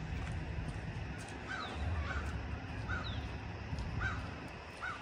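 Crow cawing five times in short, separate calls, about one every second from a second and a half in, over a low rumble. Faint high chirps of a small bird come in between the calls.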